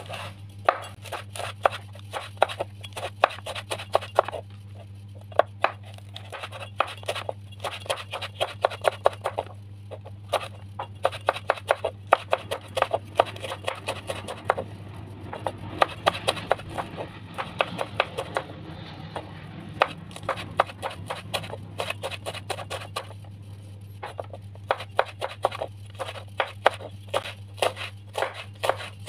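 Kitchen knife slicing green chilies on a wooden cutting board: runs of quick, crisp taps as the blade strikes the board, with short pauses between runs, over a steady low hum.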